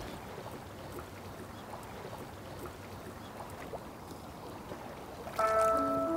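Steady waterside noise of small water movement, with a few faint ticks. About five seconds in, background music with held, bell-like mallet notes starts and becomes the loudest sound.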